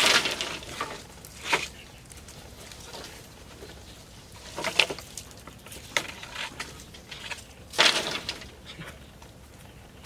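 Bamboo being worked by hand: about five sharp knocks and clatters, spaced irregularly, the loudest near the start and near the end.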